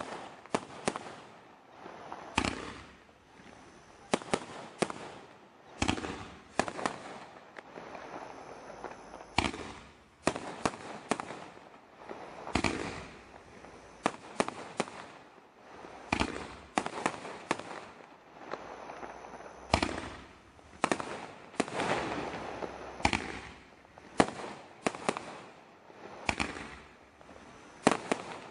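Celtic Fireworks 'Chemical Romance' multishot cake firing volley after volley of comet and mine shots: sharp launch bangs, often two or three in quick succession, every second or two, each followed by a hissing, crackling spray of stars as it fades. The cake is a low-noise type, quieter than most.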